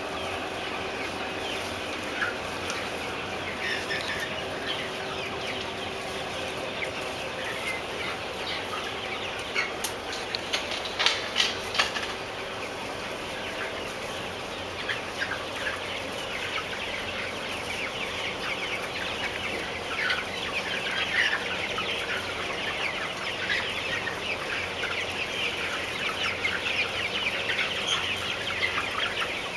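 A large flock of white Novogen parent-stock chickens clucking and calling, a dense, continuous chatter of many birds. A few sharp clicks stand out about ten to twelve seconds in.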